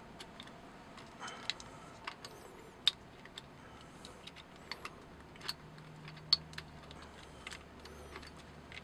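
Faint, irregular small clicks and ticks of fingers working the plastic wire plugs off the circuit board of a Daystate MK3 air rifle, with two sharper clicks among them.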